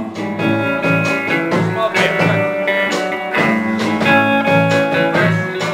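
Instrumental guitar music with a blues/country feel, steady plucked strumming between sung lines.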